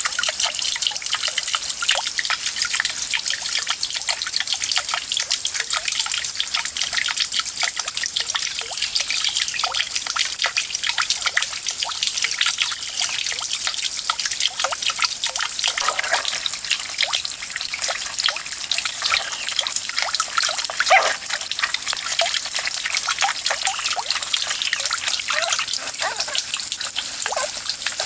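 Water trickling and dripping steadily, with many small drips over the flow and one short louder drip or splash about three-quarters of the way through.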